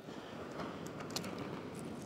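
Steady wash of surf with a few faint metallic clicks as pliers work a lure's hook out of a fish's mouth.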